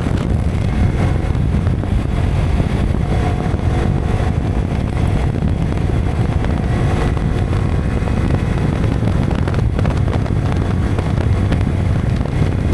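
Wind buffeting an action camera's built-in microphone on a moving Yamaha R15 V3 motorcycle, a steady low rumble, with the 155 cc single-cylinder engine's note faint underneath.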